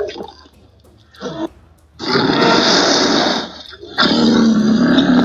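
Creature roar sound effects: a short grunt about a second in, then a loud growling roar about two seconds in lasting about a second and a half, and a second loud roar starting about four seconds in.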